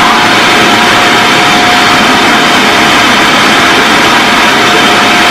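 Small electric food chopper running steadily while its lid is held pressed down, a loud even whir with a steady motor whine.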